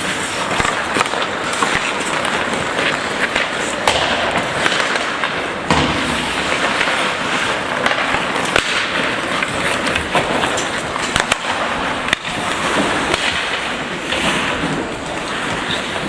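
Ice hockey play: skates scraping and carving on the ice, with scattered sharp clacks of sticks and puck.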